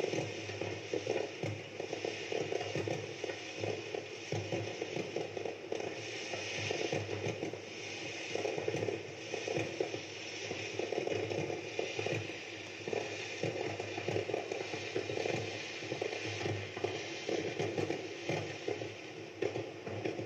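Aerial fireworks bursting in a dense, unbroken crackle and pop.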